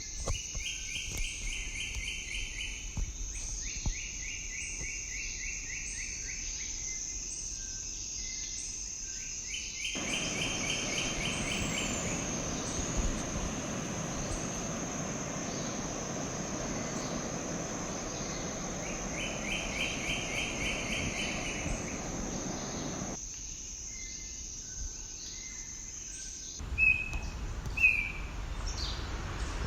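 Tropical insects keep up a steady high-pitched drone while a repeated rattling trill comes and goes three times. Through the middle a steady rushing noise joins in, then stops abruptly. Near the end the drone cuts out and a few short bird chirps sound.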